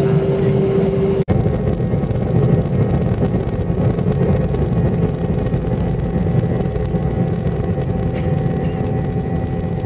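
Airliner cabin on the takeoff roll: engines at takeoff power, a steady deep rumble with several steady whining tones above it. The sound cuts out for an instant about a second in.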